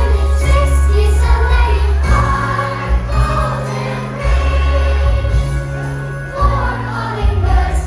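Music playing, with a bass line whose notes change about every two seconds under higher melody lines.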